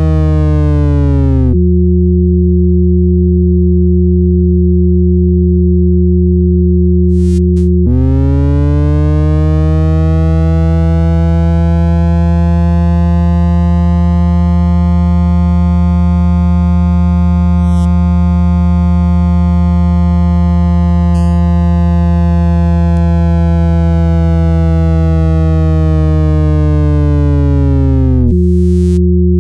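Computer-synthesized tones made by mapping drawn shapes into waveforms: circles give pure sine tones, and overlapping, cornered shapes give buzzier tones rich in overtones. A steady low sine drone sounds throughout with a few plain pure tones above it; about eight seconds in, a buzzy tone full of overtones bends up in pitch, holds for some twenty seconds and bends back down into the plain tones near the end. A thin, very high steady tone joins about eighteen seconds in.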